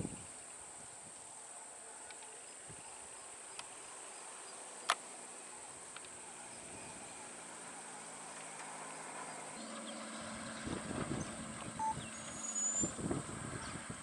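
A vehicle engine running steadily on an open road, faint at first and growing louder through the second half, with a few uneven low bumps near the end. A steady high hiss runs underneath.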